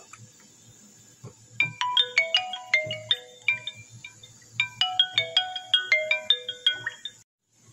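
Mobile phone ringtone: a short marimba-like tune of quick notes, played twice with a brief pause between.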